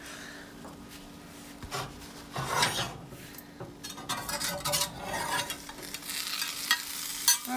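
An omelet sizzling in a seasoned omelet pan while a metal spatula scrapes along the pan under it in short irregular strokes, with a couple of sharp clicks near the end. The omelet is sticking to the pan, which needs re-seasoning.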